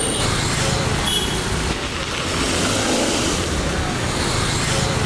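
Small hatchback car's engine running as it drives up and pulls in to the kerb, over steady street traffic noise.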